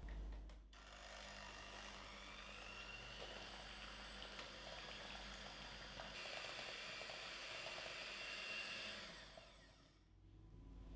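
Electric hand mixer with twin wire beaters whipping cream and mascarpone in a glass bowl: a steady motor whine with the beaters swishing through the mixture. It stops near the end.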